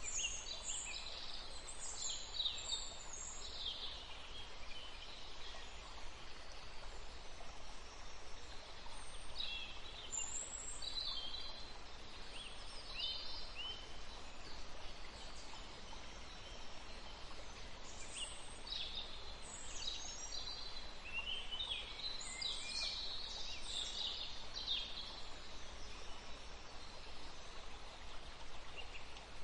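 Birds chirping in several spells of short, high calls over a steady faint background hiss of outdoor ambience.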